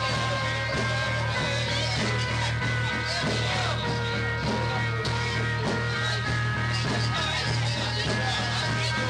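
Live rock band (electric guitar, bass guitar and drums) playing a song, recorded on tape.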